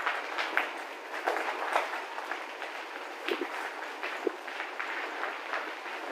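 Bicycle rolling over a rough gravel track: a steady crunching hiss from the tyres, with irregular clicks and rattles as the bike goes over bumps.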